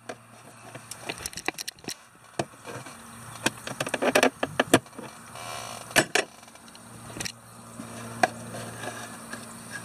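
Screwdriver prying at the plastic glove box light and trim of a Mercedes W123 dashboard: a run of sharp plastic clicks, taps and small rattles, bunched together about four to five seconds in.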